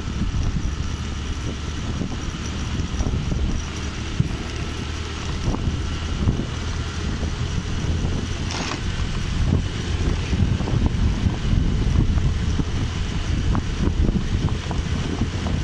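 Wind buffeting the microphone over the steady low rumble of a motorcycle riding along a road. A little past the middle there is one short knock as the tyres cross a road expansion joint.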